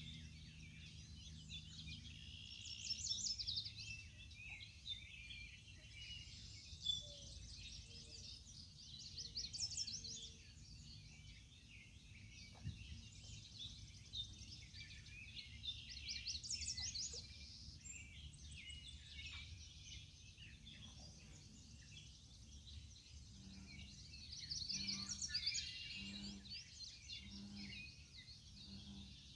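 Several songbirds singing, with bursts of rapid high trills every few seconds, over a faint steady low rumble. A few low, soft repeated notes come near the end.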